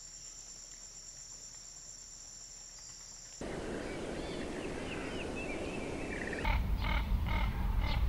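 A nature soundtrack spliced from separate recordings: a steady high-pitched whine, then from about three and a half seconds outdoor ambience with faint bird chirps, then, about six and a half seconds in, a louder low rumble with repeated sharp animal calls over it.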